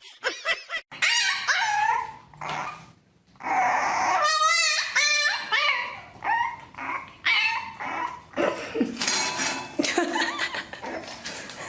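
A dog yipping and whimpering: a run of short high calls, some with a wavering, bending pitch.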